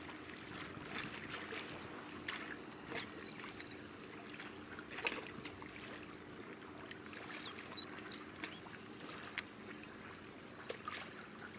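Steady low hum from a large car ferry's engines passing offshore, under irregular small ticks and splashes of water, the sharpest about five seconds in.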